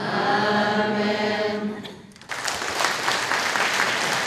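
Congregation singing a drawn-out "Amen" together in a church, held for about two seconds, then bursting into applause about two seconds in.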